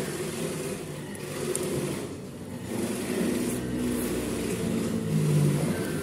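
Road traffic passing close by: engines running steadily, with one vehicle swelling loudest about five seconds in.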